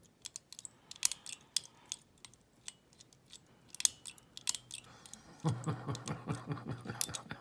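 Lock pick and tension wire working inside a Bulldog lever lock, giving sharp, irregular metallic clicks and scrapes. Near the end comes a quicker rattling run of clicks.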